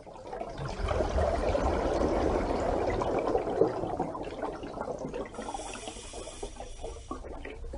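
Water noise: a steady rush with a low rumble underneath, easing off about halfway through.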